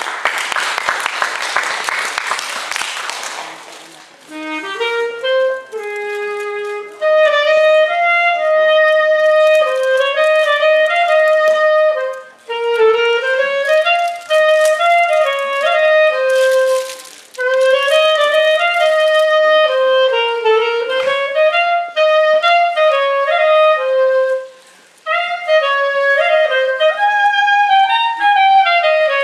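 Applause that fades out over the first few seconds, then a solo clarinet starts and plays an unaccompanied melody in phrases, with short breaks for breath between them.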